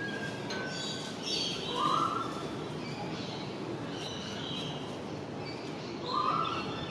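Garden birds calling: scattered short high chirps, and a repeated call about two seconds in and again about six seconds in, over a steady background hum.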